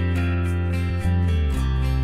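Background music with sustained notes over a strong bass line and a steady beat.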